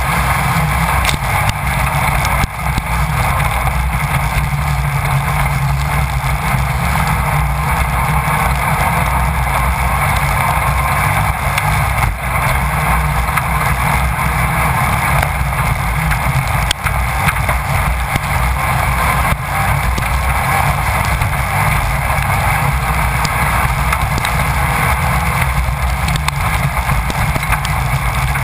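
Onboard a Class 1600 off-road race car at speed: the engine runs hard and steady under wind noise on the microphone, with occasional short knocks from the rough course.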